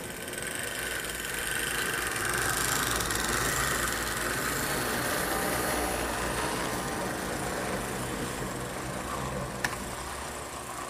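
HO scale model freight train, an Athearn BNSF SD70MAC locomotive among it, running past: steady electric motor hum and wheel rattle on the rails. It grows louder over the first few seconds as the train comes close, then eases off, with a single sharp click near the end.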